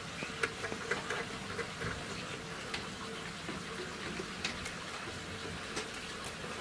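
Water trickling as a small model steam engine's boiler is filled, with scattered light clicks and taps from the engine's metal parts being handled.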